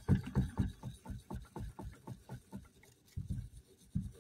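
A small wire brush scrubbing the copper commutator of a tractor starter's armature in quick, repeated short strokes, about six a second, with a brief pause a little under three seconds in. The strokes are cleaning dirt off the commutator bars.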